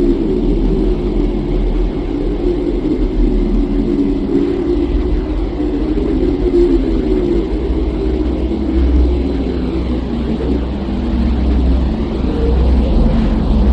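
Low, steady rumbling drone of the kind passed off as the sound of Earth from space, with its deep bass swelling louder near the end.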